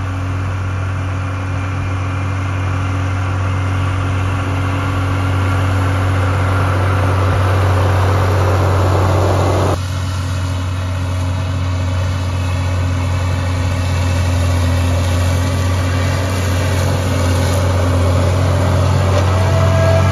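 Tractor diesel engine running at steady speed, a constant low drone. About ten seconds in the sound changes abruptly to a second, similar steady engine drone.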